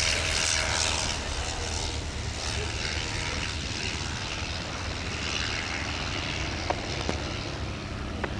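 WWI biplane fighter's piston engine and propeller running as the aircraft flies past, loudest in the first second and then easing a little as it moves away. There are a couple of small sharp clicks near the end.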